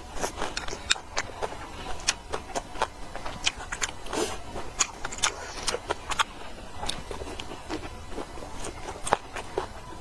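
A person eating: irregular sharp clicks and smacks of chewing and eating, several a second.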